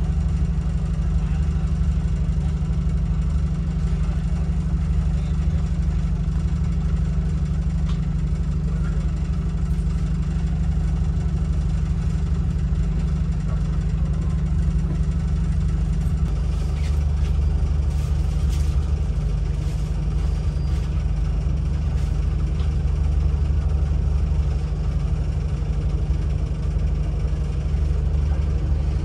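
Diesel train engine idling with a steady low hum.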